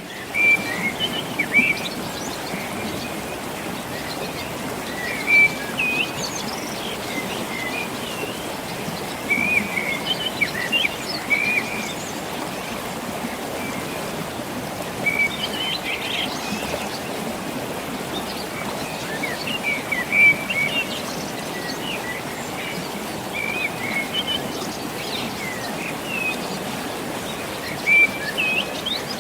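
Small birds chirping and calling repeatedly over a steady rushing background noise.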